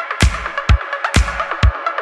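Background music with a steady, strong kick-drum beat, about two beats a second, and lighter hits between the beats.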